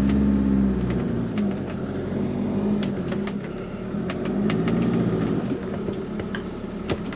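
Motorhome engine running under a hill climb, its pitch rising and falling twice, with scattered light clicks over it.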